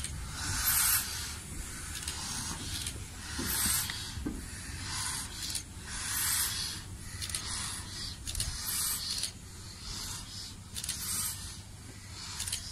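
Bulleid Battle of Britain class three-cylinder steam locomotive 34053 pulling away at low speed, its exhaust chuffing in hissing beats a little under a second apart.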